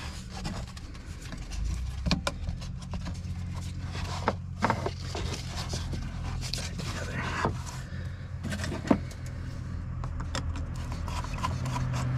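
Diesel truck engine idling steadily, with scattered sharp clicks and knocks over it.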